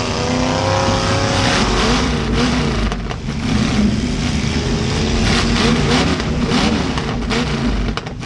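Demolition derby cars' V8 engines revving hard, rising and falling in pitch, with sharp bangs of impacts in the second half.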